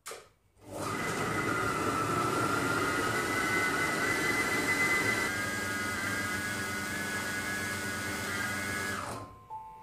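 SilverCrest Monsieur Cuisine Connect kitchen machine running at speed 5, its motor and blade mixing cake batter in the steel bowl with a steady whine. It starts about a second in and winds down and stops near the end.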